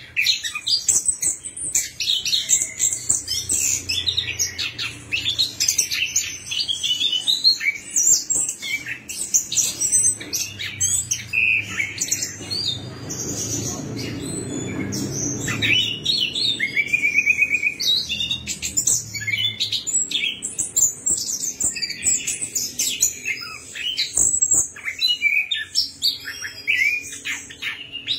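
A chestnut-capped thrush (anis kembang) singing a fast, continuous, varied song of high chirps, trills and whistled phrases. A low rumble swells underneath for a few seconds about halfway through.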